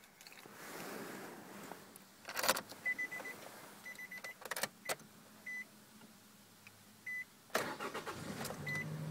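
Ignition key clicking in the switch of a 2006 Nissan X-Trail while a dashboard chime beeps at short intervals. Near the end the engine cranks, fires up quickly and settles into a steady idle.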